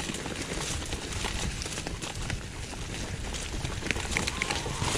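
Mountain bike rolling down a dirt woodland trail: tyres running over earth and leaf litter while the bike rattles and knocks over the rough ground, with low wind rumble on the microphone.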